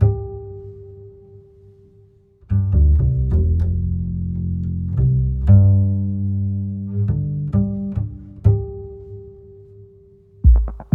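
Background music: low string notes, some plucked and some held and fading, with a brief pause a little over two seconds in before the notes start again.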